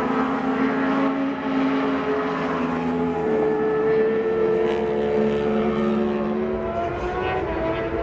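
A pack of Supersport 600 racing motorcycles running at high revs, several engines sounding at once at different pitches, their notes sliding slowly up and down through the corner.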